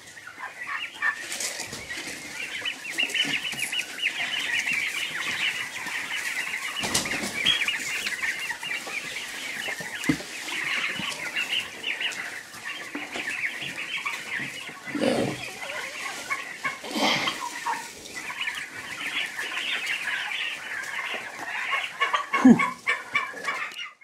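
A flock of young Big-6 turkeys, poults about 40 days old, peeping continuously in high chirps. A few scattered knocks and thumps sound through it.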